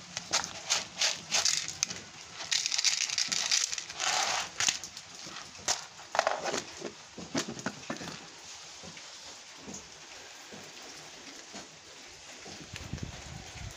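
Cats crunching dry kibble and pushing it around in plastic bowls: a quick run of crisp crunches and rattles, busiest in the first half and thinning out in the second.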